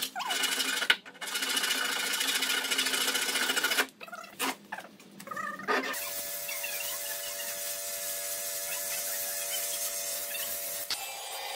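A handheld power tool works the edge of a wooden slab, running loudly with a couple of brief stops. Then a handheld power sander runs steadily over the slab's surface with a faint, even hum.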